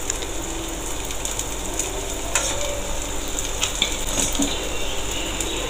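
Dhuska, a puffed rice-batter fritter, deep-frying in hot oil in a stainless steel kadhai, with a steady sizzle. A few clicks of the metal slotted spoon against the pan come in the middle.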